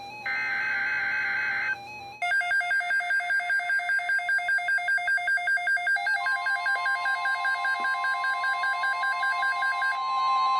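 NOAA Weather Radio SAME data burst, a short buzzy two-tone digital screech, opening the alert. About two seconds in, a weather-alert radio's alarm starts pulsing about four times a second, and about six seconds in the broadcast's steady 1050 Hz warning alarm tone joins it. Near the end the pulsing gives way to a steadier warbling alarm.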